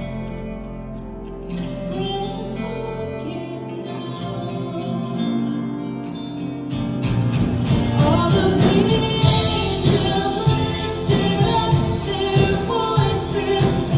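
Live worship band playing a Christmas worship song, with a woman singing lead over keyboard and guitar. The band fills out and gets louder about halfway through, with a heavier bottom end and steady percussion coming in.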